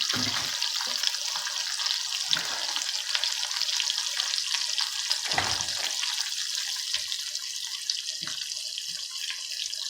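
Food sizzling in a hot pan: a steady crackling hiss with faint low knocks now and then.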